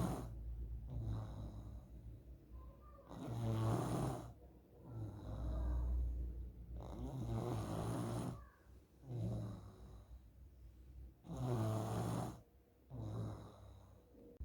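A child snoring in sleep: a rasping snore on each breath, the strongest about every four seconds with a softer one between. The mother takes this snoring as a sign of nasal polyps.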